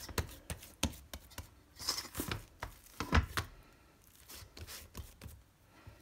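Hands kneading and pressing soft dough against a stainless steel bowl: irregular soft slaps and taps, busier for the first three seconds or so, then fainter.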